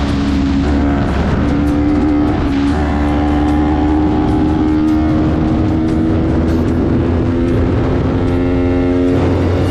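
Yamaha YZF-R3 parallel-twin engine pulling under load, heard from onboard with wind and road noise. Its pitch climbs slowly for several seconds and drops back about nine seconds in.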